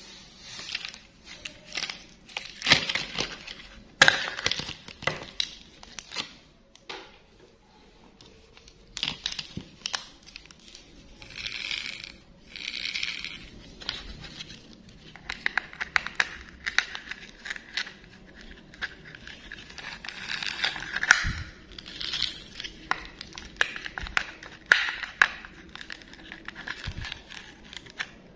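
Hard plastic toy train parts being handled and fitted together by gloved hands: irregular clicks, knocks and scrapes of plastic, with crinkling and rustling between them and two short squeaks about halfway through.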